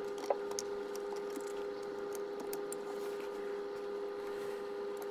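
A steady hum of several fixed tones, with faint light clicks and rustling as balance-lead connectors on lithium battery modules are handled with gloved hands.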